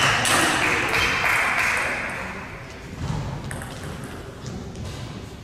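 Celluloid-type table tennis ball clicking sharply off bats and table in a rally, a few hits mostly in the first second, over a haze of hall noise that fades over the first couple of seconds.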